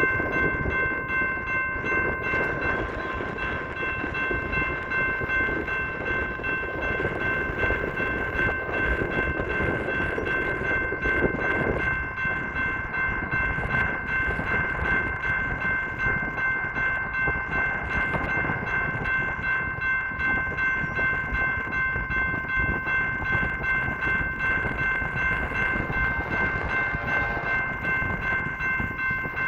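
Grade-crossing warning bell ringing steadily, starting suddenly at the outset, over the low rumble of a coal train drawing near.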